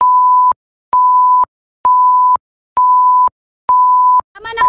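Countdown timer beeps: five identical steady, high electronic beeps, about one a second, each lasting about half a second, timed to a video intro's numbers counting down. A voice cuts in near the end.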